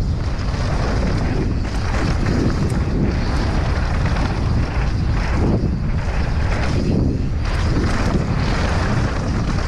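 Wind rushing over an action camera's microphone as a mountain bike rides fast down a dirt trail, with the tyres rumbling over the ground and a few small clatters from the bike over bumps.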